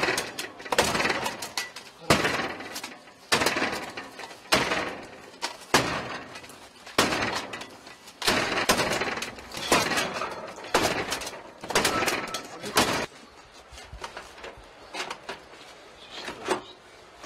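Heavy blows struck repeatedly against a front door, about a dozen of them a little over a second apart, each with a crashing, breaking sound: police trying to force the door open. The blows stop about thirteen seconds in.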